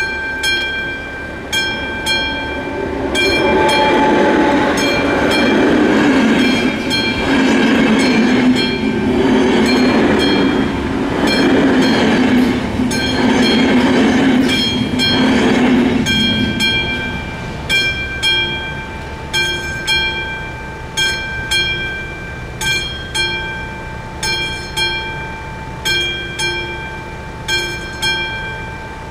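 Level-crossing warning bell ringing in even strokes, about one and a half a second, throughout. A double-deck passenger train passes over the crossing from about three seconds in until about sixteen seconds, its noise loudest in the middle. The bell keeps ringing after the train has gone.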